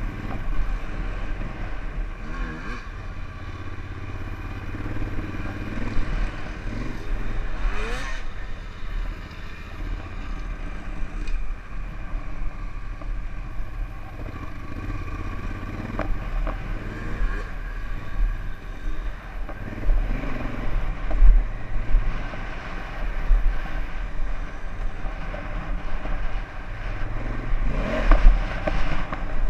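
Honda Africa Twin adventure motorcycle engine running under way on a dirt track, its revs rising as the rider accelerates about three times.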